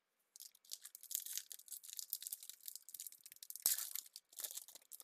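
Wrapper of a 2021 Bowman baseball card pack being torn open by hand: a run of crinkling and crackling that starts just after the beginning, with the loudest rip a little past halfway. The pack is a stubborn one to open.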